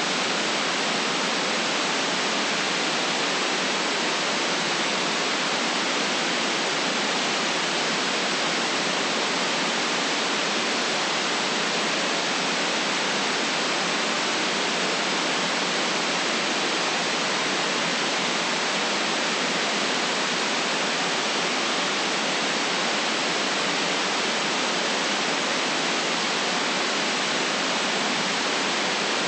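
Steady, unchanging white noise: a smooth, even hiss with no deep bass, no events and no change in level.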